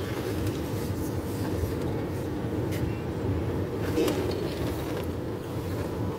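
Steady rumble of a car driving, with road and wind noise heard from inside the vehicle.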